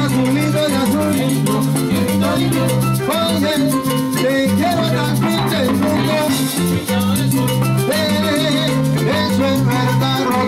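Live salsa band playing a steady, driving dance rhythm on keyboard, saxophone and percussion.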